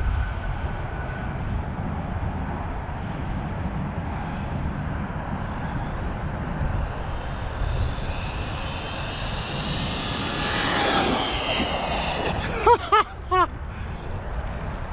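Arrma Vorteks 3S RC truck's brushless motor whining at full speed on a 2S battery, over steady wind rumble on the microphone. The whine rises as the truck comes closer, peaks and then falls away as it passes. Near the end, three quick rising-and-falling chirps.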